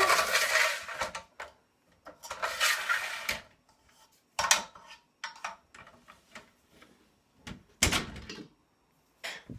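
Aluminium loft ladder being slid back up into the loft hatch: a run of metal scrapes, rattles and clicks, with a heavier clunk near the end.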